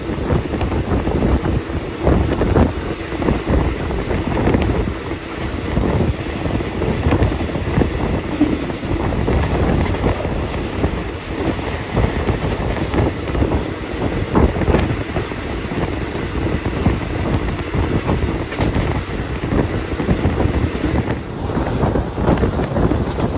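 Wind buffeting the microphone out of the window of a moving passenger train, over the steady rumble of the train running on the rails.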